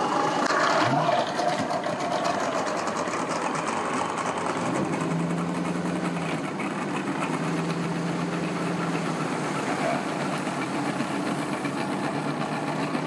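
Boat motor running steadily at low, idling speed as a boat is brought in to the ramp.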